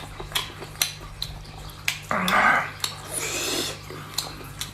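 A person eating spicy snails with wet sucking and slurping sounds and many small wet clicks. Two louder slurps come about two and three seconds in.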